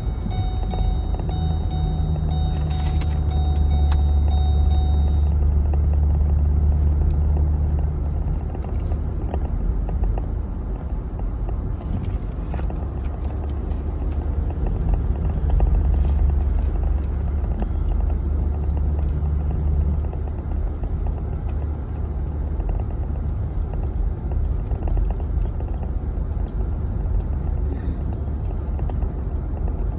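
Steady low road rumble and engine drone inside a moving car's cabin, swelling and easing slightly with the drive.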